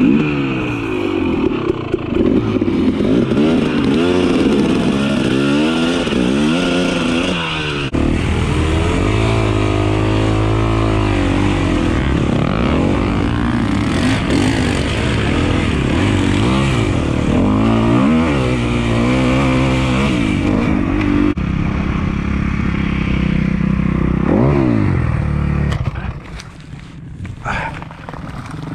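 Dirt-bike engines revving hard, their pitch rising and falling again and again as the bikes struggle over rough ground, several running at once at times. Near the end the engine sound drops away sharply as the bike goes down.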